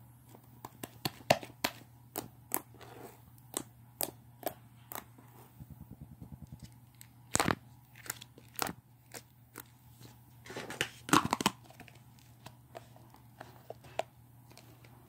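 Slime being kneaded and stretched by hand, giving irregular sharp sticky clicks and pops, with a quick run of small crackles midway and a denser cluster of pops a few seconds before the end.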